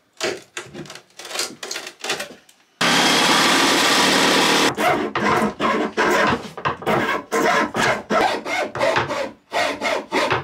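Hand hacksaw cutting through a wooden post with quick back-and-forth strokes, about two to three a second, from about five seconds in. Before that come irregular scraping strokes and a steady, loud noise lasting about two seconds.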